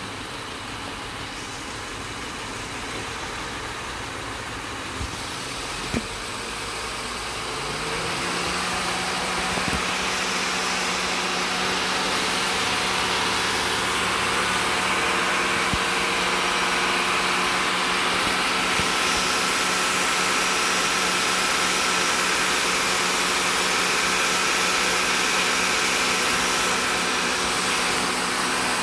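Honda Odyssey 3.5-litre V6 with a confirmed blown head gasket, idling and then revved up about eight seconds in and held at a steady raised speed. Two short sharp clicks come just before the rise.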